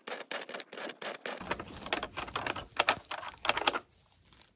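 Hand socket ratchet clicking in quick runs as it loosens a half-inch nut on a bicycle seat's steel mounting bracket, with a few sharper metal clinks around three seconds in.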